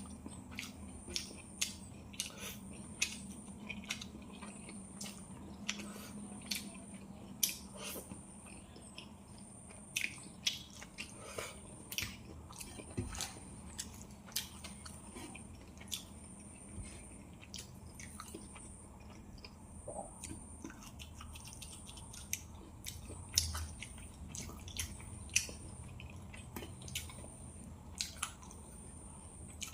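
Close-miked sounds of a person eating a rice and fish-curry meal: wet chewing with frequent sharp smacks and clicks of lips and tongue at an irregular pace.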